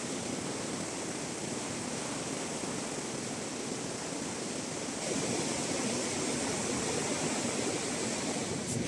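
Surf breaking and washing up a sandy beach, a steady rushing wash that swells a little about halfway through.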